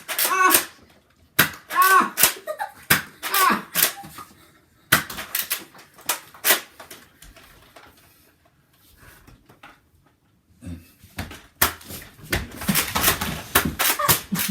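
Sharp clicks and knocks of a Nerf gun fight: blasters being primed and fired, darts hitting surfaces. There are short vocal yelps in the first few seconds, a lull in the middle, and a dense run of knocks near the end.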